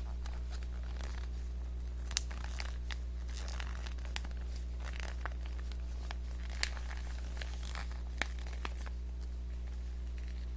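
Plastic spout pouch of konjac jelly crinkling as it is squeezed and sucked from, with scattered small clicks and crackles over a steady low hum.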